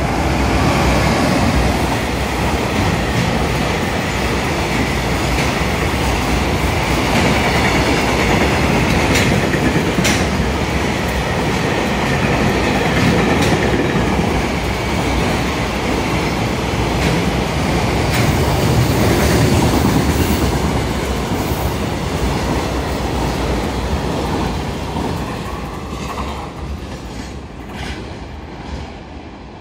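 Long container freight train, hauled by an electric locomotive, passing at speed: a loud steady rumble of wheels on rail with scattered clicks. It fades near the end as the last wagons pull away.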